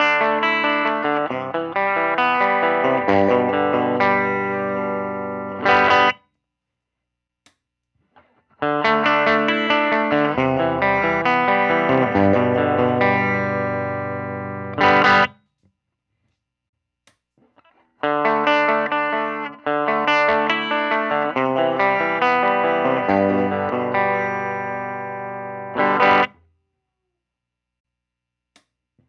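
Electric guitar played through a Benson amplifier on a clean setting: three short phrases of picked notes and chords with silent pauses between them, each phrase ending on a sharply strummed chord.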